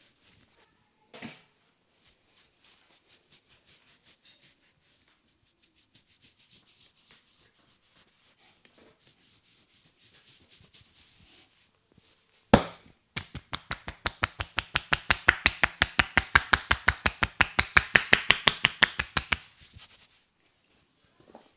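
Percussive massage strokes: faint rubbing and light taps, then one sharp loud slap about halfway through. It is followed by a fast, even run of strikes, about seven a second, that builds in loudness for some six seconds and then stops.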